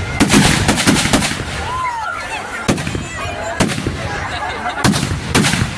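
Fireworks bursting: a quick run of loud bangs in the first second, then four more single bangs with crackling between them.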